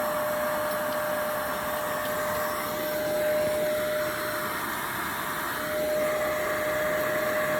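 Tuomico rechargeable electric air pump running, a steady motor whir with a constant whine as it pumps air into an inflatable.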